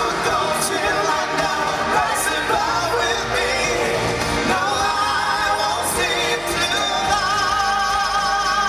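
A male singer sings live into a handheld microphone over a pop music backing. Near the end he holds a long note with wide vibrato.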